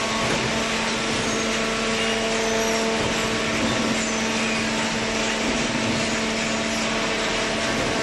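Hydraulic baling press and its belt feed conveyor running: the electric motor and hydraulic pump give a steady hum at a constant pitch over an even hiss.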